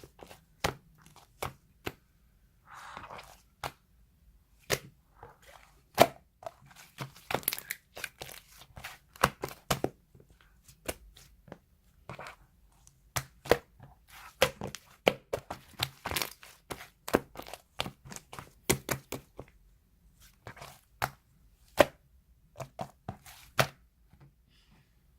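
Slime being squished and pressed by hand, making a fast, irregular run of sharp clicks and pops as air pockets in it burst.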